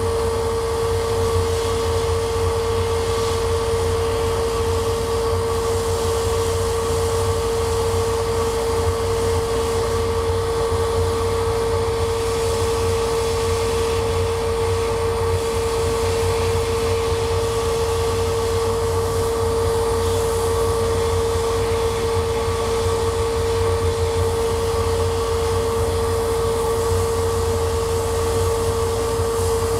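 Laser cutter running while engraving wood: a steady mechanical drone with a constant mid-pitched whine over a low hum.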